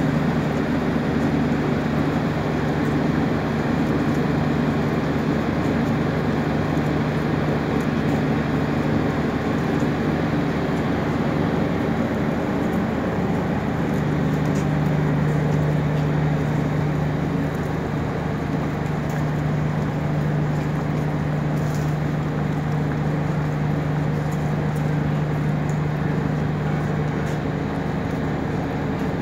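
Modernized diesel multiple unit standing at the platform with its engine idling: a steady low hum that drops back briefly about twelve seconds in and then returns.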